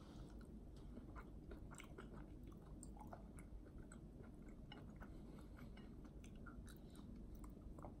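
Faint, close-miked chewing of a mouthful of green vegetable: a stream of small, irregular mouth clicks and crunches.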